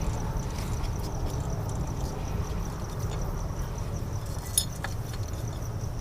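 Metal hand tools clinking against engine parts, with a sharp clink about four and a half seconds in, over a steady low rumble.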